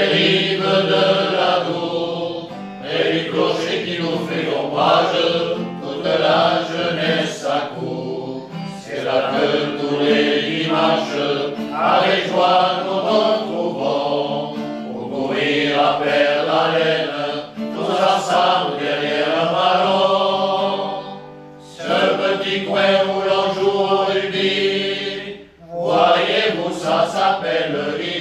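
Men's choir singing an anthem together, accompanied by an acoustic guitar, with brief breaths between phrases about three quarters of the way through.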